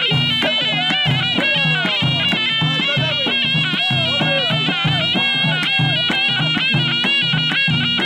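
Traditional North African folk music: a reedy wind instrument plays a wavering, ornamented melody over a steady beat of frame drums.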